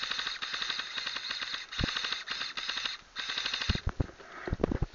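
Airsoft gun firing three bursts of rapid full-auto fire, the first longest and the last shortest, followed by a few low thuds near the end.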